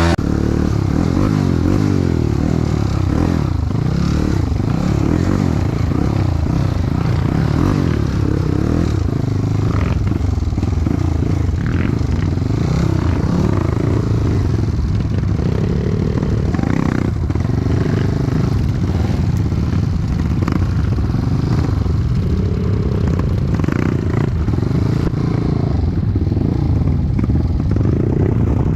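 Dirt bike engine running at low to middling revs, its pitch rising and falling with the throttle, with scattered knocks and clatter.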